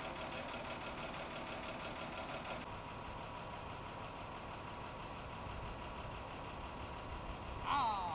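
A vehicle engine idling steadily; about two and a half seconds in it gives way to a quieter steady hum. Near the end there is a brief, louder sound like a voice.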